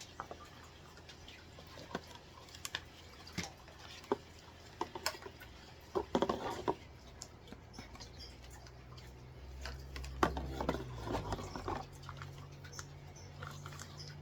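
Scattered light taps, clicks and rustles of box contents and packaging being handled, thickest about six seconds in, with a low hum coming up about ten seconds in.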